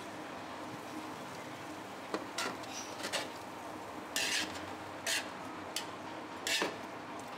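Metal spoon scraping and clinking against the inside of a large aluminium cooking pot as cooked biryani rice is stirred and mixed: about seven short scrapes, the longest about four seconds in and again near the end, over a steady hiss.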